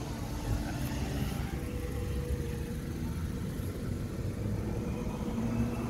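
Steady low hum of an engine running, with a few held tones and no change in speed.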